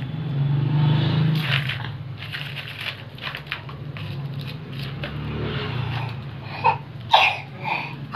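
Dry onion peels crackling and rustling as a toddler's hands rummage through them in a plastic basket, over a steady low hum. A few short voice sounds come near the end.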